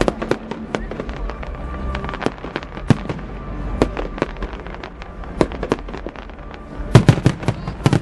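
Fireworks going off: a steady scatter of sharp bangs and pops at irregular intervals, breaking into a loud, rapid volley of cracks near the end.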